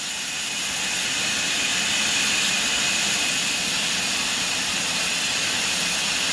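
Antique sawmill saw running steadily as it processes teak: a constant, even hiss-like noise, strongest in the upper range, with no breaks or changes.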